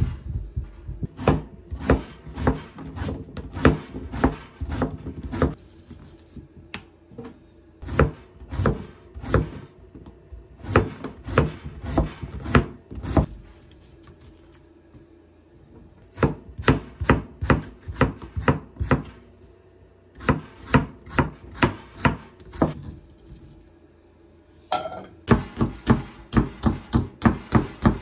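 Chef's knife cutting through daikon radish onto a wooden cutting board: sharp knock after knock in runs of several strokes, broken by short pauses. Near the end a quicker, even chopping of about three strokes a second as green onion is sliced into thin rounds.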